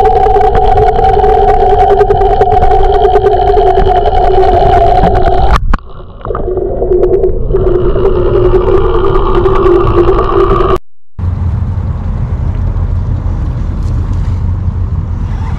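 Electric trolling motor whining as heard through an underwater camera: two steady held tones that dip briefly about six seconds in and come back at a changed pitch. Near the end it cuts abruptly to a low steady rumble above water.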